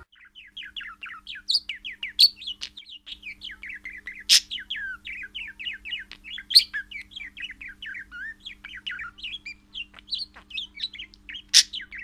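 Budgerigar warbling: a continuous stream of quick chirps, about five or six a second, with a handful of louder, sharper calls standing out from it.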